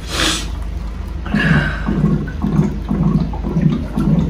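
Hot water running from a Clover water cooler's hot tap into a paper cup of instant coffee powder, filling it. Low, even pulses about three times a second run through the pouring.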